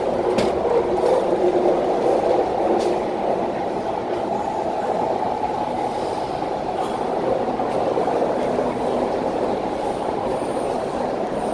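MTR Kwun Tong Line C-Train running between stations, heard from aboard: a steady rumble of wheels and running gear, with a couple of faint clicks in the first few seconds.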